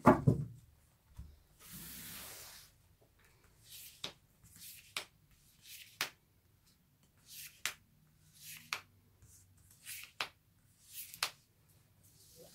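Tarot cards handled on a table: the deck is set down with a thump and spread out in a fan with a short swish, then single cards are slid out of the spread and laid down one by one, each with a short sharp tap, about eight taps roughly a second apart.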